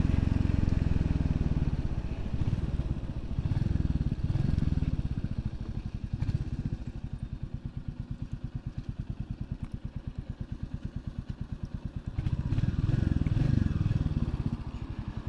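Royal Enfield Classic 350's single-cylinder engine running under way, then dropping to a slow, even thump at low revs for several seconds before picking up again near the end.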